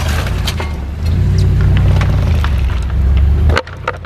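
A car engine running hard with a steady low drone, with scattered sharp knocks and clatter over it; the sound cuts off abruptly about three and a half seconds in.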